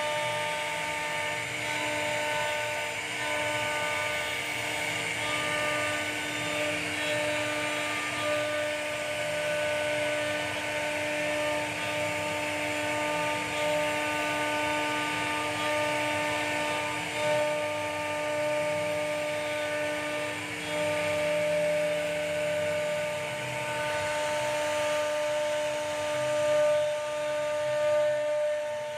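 CNC router spindle whining steadily as its small bit carves a relief pattern into a wooden panel, with the hiss of the cut running under the whine.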